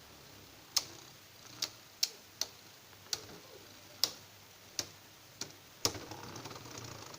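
Plastic Beyblade spinning tops knocking together in a battle: about nine sharp clicks at uneven intervals, then a quicker rattling from about six seconds in.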